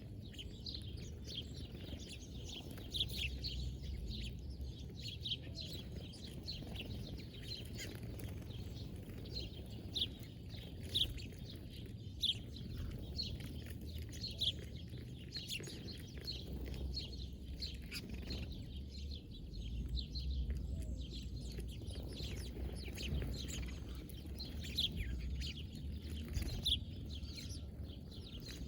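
Birds chirping: many short, high chirps repeating throughout, over a steady low rumble.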